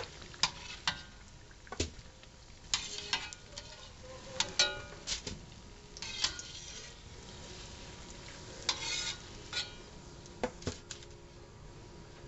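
Sopapillas deep-frying in hot oil with a steady sizzle, while a wire mesh skimmer clinks against the stainless steel pan again and again as the puffed pastries are lifted out.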